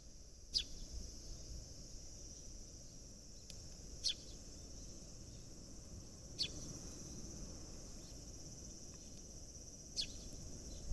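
Sparrows giving four short, sharp, falling chirps several seconds apart, over a steady high-pitched insect trill.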